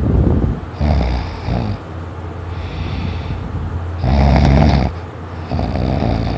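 A sleeper snoring heavily, a loud rasping snore on each breath in and out, about a second each with short gaps, the loudest about four seconds in.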